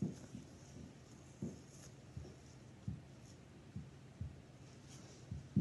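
Hands squeezing and handling a homemade slime squishy: soft, low thumps at irregular intervals, about one a second, with a faint high rustle.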